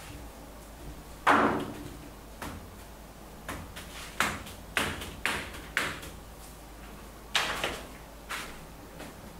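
About nine sharp knocks and taps at irregular intervals. The first, about a second in, is the loudest.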